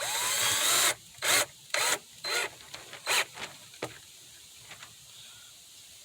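Hand screwdriver turning wood screws into a plywood speaker baffle. A scraping rub of about a second comes first, then several shorter rubbing strokes, each a turn of the screw.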